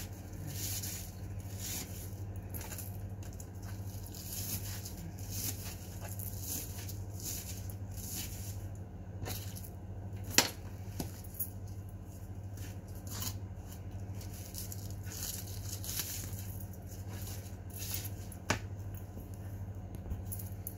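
Hands tearing and pulling apart raw meat: repeated short wet tearing and squishing noises, with a sharp click about ten seconds in and another near the end, over a steady low hum.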